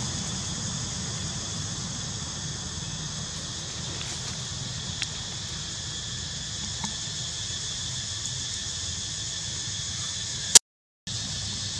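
Steady high-pitched insect chorus drone, over a low rumble of wind on the microphone, with a few faint ticks. Near the end a sharp click is followed by about half a second of dead silence.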